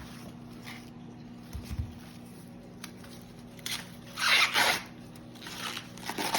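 Corn husks being torn and peeled back from a fresh ear of sweet corn: two rustling tears, one a little past the middle and another near the end.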